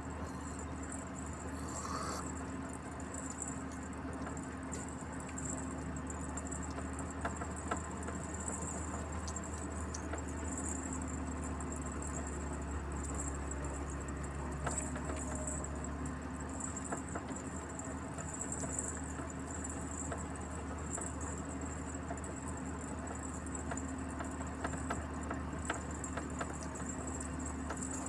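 Cab noise of a truck on the move: a steady low engine and road drone with light rattles and ticks.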